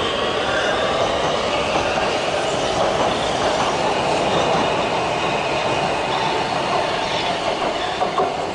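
Oslo Metro MX3000 trains moving through a station close by: a steady rumble of wheels on rail, with wavering high squeals from the wheels and a few sharp clacks over the track near the end.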